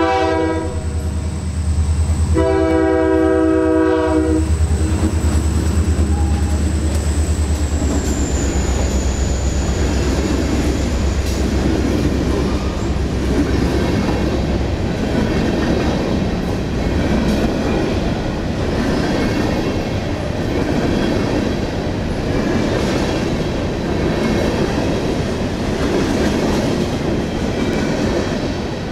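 Train horn sounding a short blast and then a longer one over the low rumble of the locomotive. After about eight seconds the rumble passes and the cars roll by with a steady rumble and clatter.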